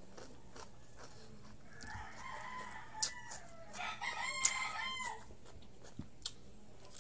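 A rooster crowing in the background: one long, drawn-out crow from about two seconds in to about five seconds in. A few sharp crunches of chewing raw vegetables fall over it.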